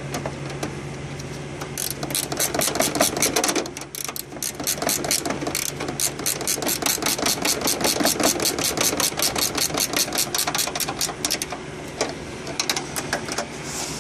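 Ratcheting combination wrench clicking rapidly as it tightens bolts, in runs of quick even clicks with a short pause about four seconds in.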